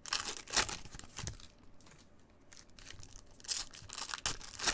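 Foil wrapper of a Panini Mosaic trading-card pack being torn open and crinkled by gloved hands, in crackly bursts near the start and again near the end.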